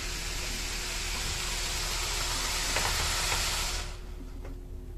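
Steady loud hiss that cuts off suddenly near the end, with a faint steady hum underneath. A few faint clicks come as an N-gauge freight train rolls past.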